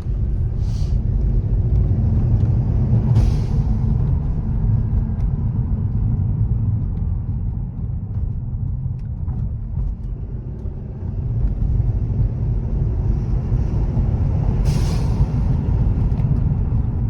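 Turbocharged Mercedes C250 engine pulling under throttle and easing off, with the sharp hissing release of a GFB DV+ vent-to-atmosphere blow-off valve dumping boost as the throttle closes. The hiss comes three times: about a second in, after about three seconds, and near the end.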